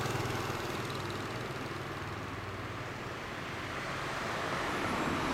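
Kawasaki Zephyr 1100's air-cooled inline-four engine idling steadily through an M-TEC Chukyo short-pipe muffler.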